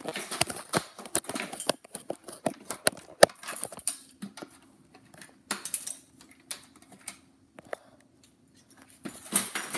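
Rapid sharp clicks and rattling of small hard objects being handled, dense at first and then scattered, with a faint steady hum from about four to nine seconds in.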